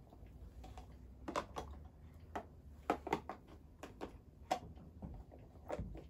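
Light clicks and taps, a handful at irregular intervals, from small objects handled on a wooden table, over a faint low hum.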